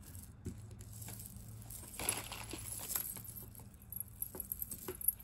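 Jewelry and its packaging being handled: a rustling crinkle about two seconds in, and scattered light clicks and taps of small metal pieces, thickening near the end.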